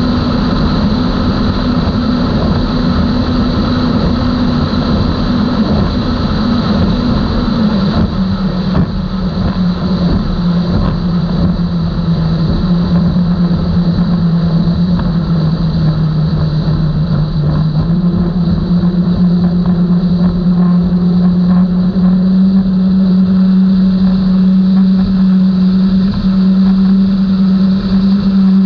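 Outboard motors of a 32-foot Skater catamaran running under way with a loud, steady engine note. The pitch drops about a quarter of the way in, sags a little further, then rises again past the middle as the throttle comes back up.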